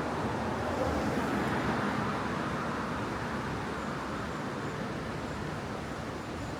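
Road traffic going by: a steady rushing noise of tyres and engines that swells about a second in and then slowly eases off.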